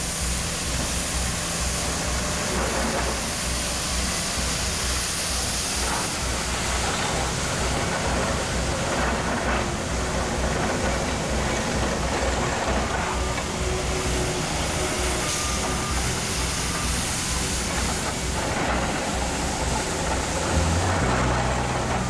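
Diesel engines of heavy road-work trucks running steadily, with a continuous hiss over a low engine rumble.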